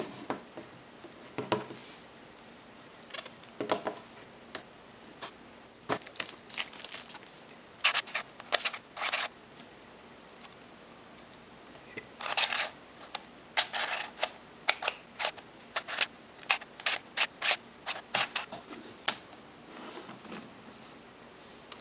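Cheap plastic puzzle cubes clicking and clattering as hands handle them and set them down on a wooden table: irregular clicks and short rattles, thickest in the second half.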